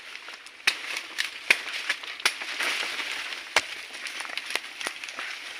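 Twigs snapping and dry leaves and brush crackling underfoot as someone pushes through dense forest undergrowth, with several sharp cracks spread irregularly through.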